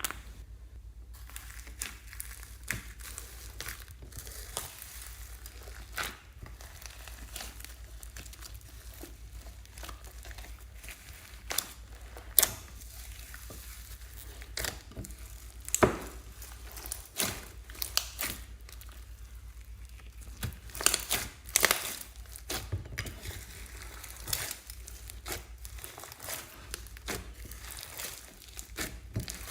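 Slime being kneaded and stretched by hand, giving irregular sticky crackles, clicks and pops over a faint steady low hum.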